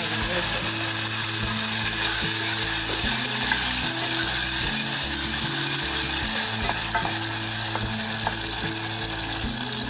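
Hot oil and garlic in a pan start sizzling loudly and suddenly as onion paste goes in, then keep frying steadily while being stirred, with a few light taps in the second half.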